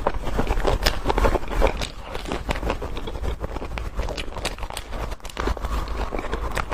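Close-miked eating of sweets: irregular crunching and chewing clicks, with crisp bites now and then.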